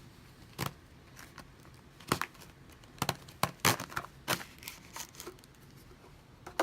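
A cardboard box being opened and its packing handled: a string of short knocks, scrapes and tearing of cardboard and paper, loudest around the middle.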